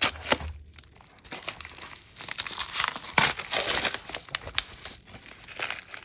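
Crinkling and tearing of a sealed trading-card booster pack's plastic-foil wrapper as it is torn open and handled, loudest about two to four seconds in.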